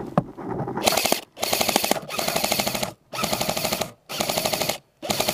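Airsoft rifle firing on full-auto in five rapid bursts of about half a second to a second and a half, with short pauses between them.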